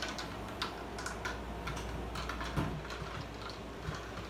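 Scattered light clicks and knocks of instruments and a wooden chair being handled as a mandolin player sits down beside an acoustic guitarist, with no notes played.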